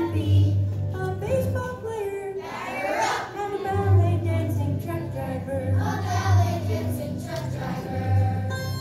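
A song sung by young children's voices over a music track with a prominent bass line.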